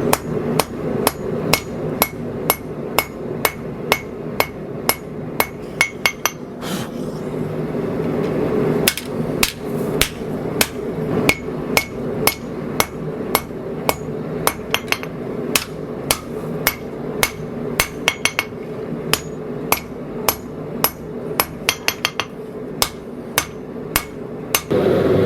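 Hand hammer striking hot steel on an anvil, a steady run of blows about two a second with a ringing edge, easing briefly about seven seconds in. The smith is setting in the ricasso shoulders of a wide 80CrV2 blade at the anvil's edge.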